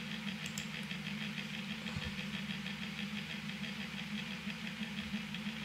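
Steady machine-like hum with a fast, even pulse in its upper part, and a couple of short sharp clicks about half a second in.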